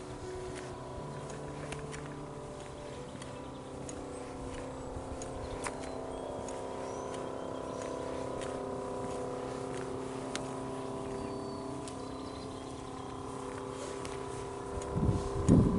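A steady motor-like hum with several held tones, with faint high chirps over it. A short burst of low rumbling near the end is the loudest sound.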